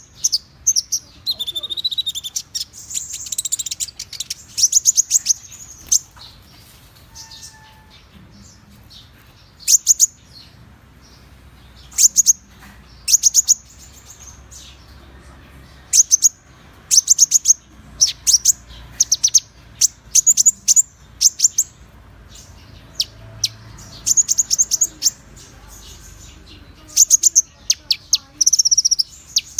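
Konin songbird song: short bursts of rapid, high chirping trills, repeated every second or two. It is a lure recording meant to set other konin singing.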